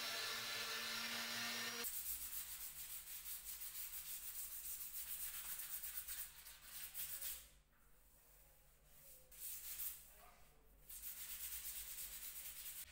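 A Mac Allister random orbital sander runs steadily on the walnut top for the first two seconds. Then comes hand sanding: sandpaper is rubbed back and forth along the edge of the walnut tabletop in quick rasping strokes, with two short breaks in the second half.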